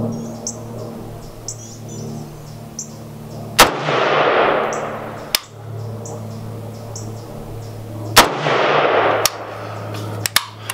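Two rifle shots from a Zastava AK-pattern rifle in 7.62×39 about four and a half seconds apart, each a sharp crack followed by a rolling echo that dies away over about a second and a half.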